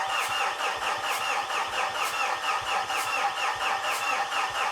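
Mitsubishi Fuso FG's 4P10 common-rail turbo diesel being cranked over by the starter in an even, rapid rhythm without catching. The no-start is put down to fuel rail pressure not building, which the owner suspects comes from a stuck rail pressure regulator.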